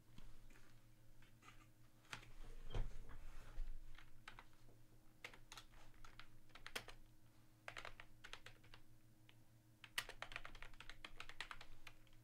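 Faint, irregular typing and key clicks on a computer keyboard, in bursts, with one duller knock about three seconds in.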